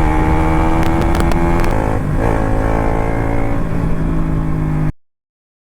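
KTM RC 200's single-cylinder motorcycle engine running at steady revs, its pitch creeping up slightly, then cut off abruptly near the end.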